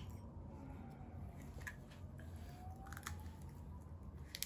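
A few faint, short crunches and clicks of crisp fried pani puri shells being cracked and handled, about three in all, over a low steady hum.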